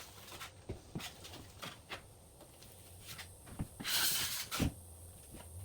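Drywall knife spreading joint compound on a drywall joint: light taps and clicks, then one longer scraping swipe about four seconds in.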